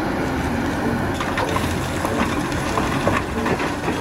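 Cat 6015B hydraulic mining excavator's diesel engine running steadily while its bucket pours dirt and rock into a dump truck, with scattered knocks and clatter of falling rock.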